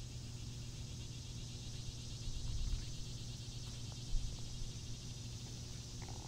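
Night insects chirping in a steady, high, finely pulsing chorus over a low steady hum, with a couple of soft low bumps about two and four seconds in.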